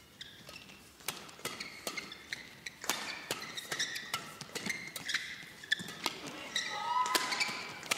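Badminton doubles rally: rackets hitting the shuttlecock in a quick exchange of sharp hits, about two a second, starting about a second in, with shoes squeaking on the court mat.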